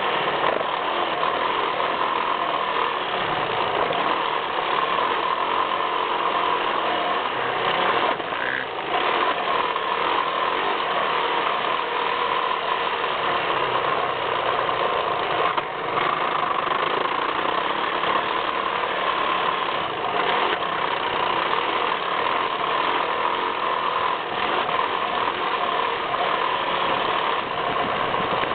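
Yamaha YZ450F four-stroke single-cylinder motocross bike running around a dirt track, heard from a camera on its front fender. The sound is steady and loud, dipping briefly twice.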